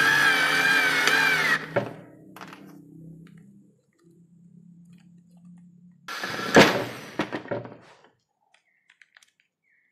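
Daewoo 3.6 V cordless lithium screwdriver's motor whining as it drives a screw, its pitch wavering under load, stopping with a click about a second and a half in. A few seconds later comes a clatter with one sharp knock.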